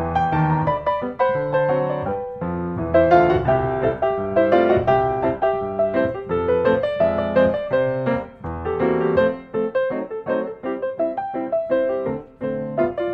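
Background piano music: a solo piano playing a gentle melody of separate notes.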